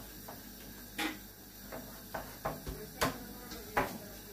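A spoon clicking against a dish several times while beaten egg is spooned out. The light knocks come at irregular intervals, with the sharpest about a second in, at three seconds and near the end.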